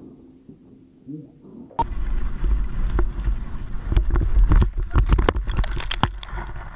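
Wind buffeting a helmet-mounted action camera and skis scraping over snow, starting suddenly about two seconds in. Toward the end comes a rapid run of knocks and thumps as the skier crashes and tumbles in the snow.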